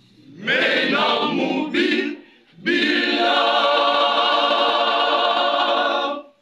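Women's choir singing: a phrase of about two seconds, a short break, then a long chord held with a slight waver that stops sharply near the end.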